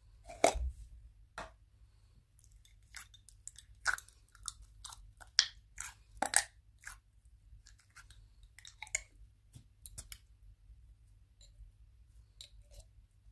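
Thick pink slime being pulled out of a glass jar and stretched by hand, making irregular sticky clicks and pops, a few of them sharper and louder than the rest.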